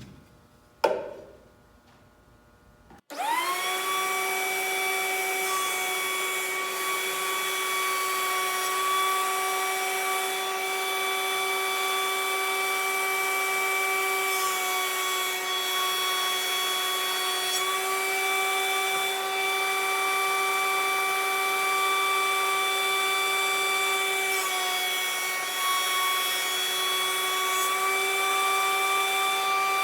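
A sharp knock about a second in, then a small thickness planer switched on about three seconds in, its motor spinning up to a steady high whine. The pitch dips slightly now and then as the wooden side pieces are fed through and planed down to width.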